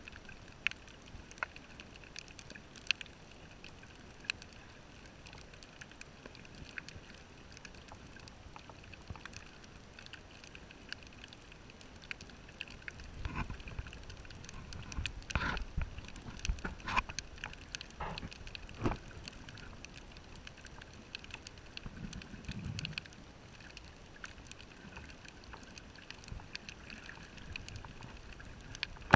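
Underwater sound on a reef dive: a faint steady hiss with scattered sharp clicks, and a cluster of bubbling bursts from a scuba diver's exhaled breath about halfway through, followed a few seconds later by a low burble.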